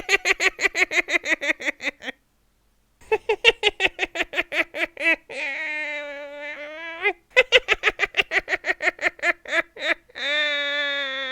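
High-pitched evil witch's cackle: three runs of rapid "ha-ha-ha" laughter, the first cut off by a pause of about a second, the next two each ending in a long, drawn-out wavering cry, the last still held at the end.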